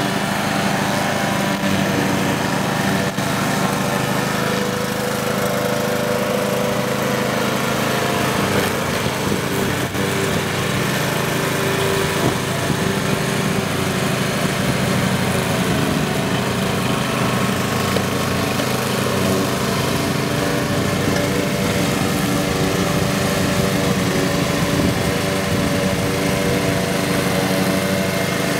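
Stiga Park front-deck ride-on mower running steadily while cutting grass: the small petrol engine holds an even pitch with the blade deck whirring, and no stop or change in revs.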